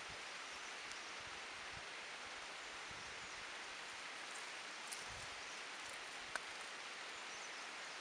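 Steady outdoor ambience, an even hiss, with a few faint light clicks and ticks, the sharpest a little past six seconds in.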